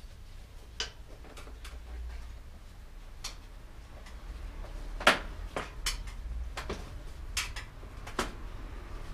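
Irregular light clicks and knocks from hands and tools working on a Dutch bike's rear wheel and tyre, the loudest about five seconds in.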